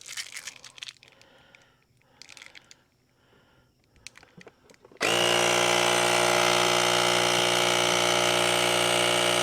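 Small electric air compressor built into a GOOLOO A3 portable jump starter, starting suddenly about halfway through and then running steadily with an even motor drone and whine. Before it starts there are only faint handling clicks.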